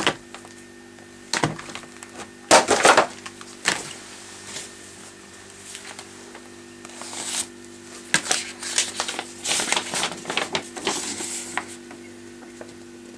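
Books and papers being handled and leafed through: scattered rustles of paper and light knocks, busiest for a few seconds before the end, over a faint steady hum.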